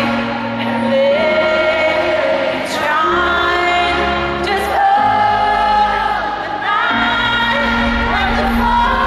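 A woman singing a pop song live with a microphone over a band's backing, the low notes underneath changing about every two seconds.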